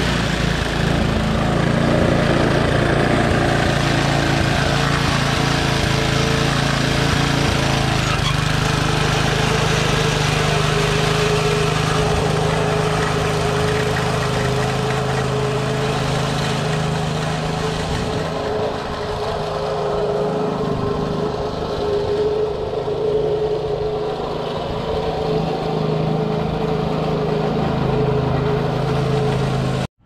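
Briggs & Stratton 3 hp single-cylinder engine on a Toro Power Handle reel mower running steadily while it drives the self-propelled mower. The engine note shifts about eight seconds in.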